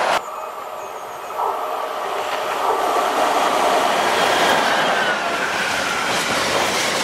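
Container freight train hauled by a Class 90 electric locomotive passing at speed close by, its wagons rolling past with a steady rushing rumble of wheels on rail. The sound cuts in abruptly just after the start.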